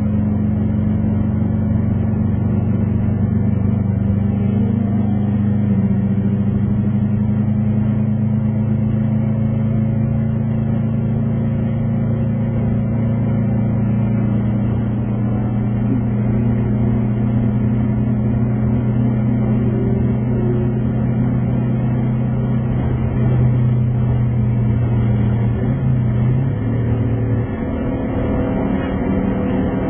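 Subaru Impreza RB5's turbocharged flat-four engine heard from inside the cabin, holding a steady drone at constant revs down the straight. Near the end, the pitch dips briefly and the level drops for a moment before the note picks up again.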